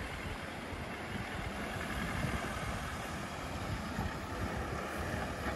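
Land Rover Defender's engine running steadily as the vehicle drives over dirt mounds, a low even rumble.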